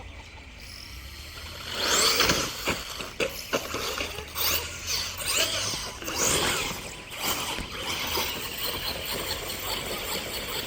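Electric RC car driven hard: the motor's whine rises and falls in repeated glides as it speeds up and slows, with sharp knocks and scrabbling mixed in. It starts suddenly about two seconds in and then settles to a steadier run.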